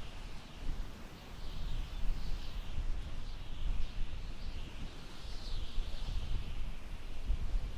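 Summer wind blowing through tall grass, buffeting the microphone in gusty low rumbles, with high chirps repeating about once a second.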